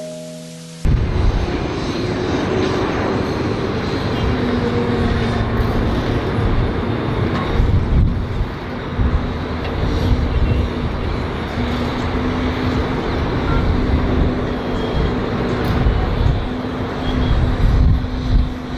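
Steady vehicle noise: a continuous low rumble with a steady hum, starting abruptly about a second in.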